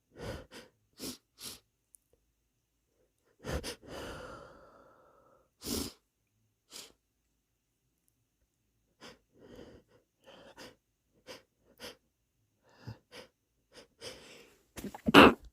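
A person sniffling and stifling sneezes: a string of short, sharp nasal and breathy bursts with gaps between them, the loudest a held-back sneeze near the end.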